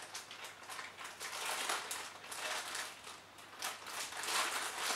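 Foil blind-bag wrapper crinkling as it is squeezed and turned in the hands, with soft, irregular rustles while the figure inside is felt through it.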